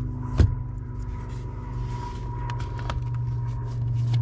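Steering column parts being worked loose by hand: one sharp knock about half a second in, then a few faint clicks, over a steady low hum.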